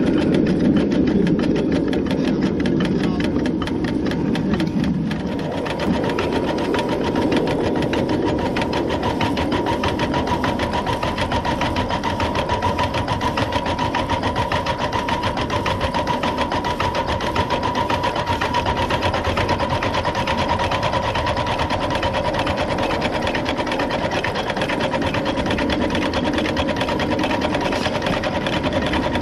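Coal-fired 7½-inch-gauge live steam Long Island H-10 2-8-0 locomotive running along the track, a rapid, even mechanical ticking of its running gear and wheels on the rail. A thin steady high tone joins in about six seconds in.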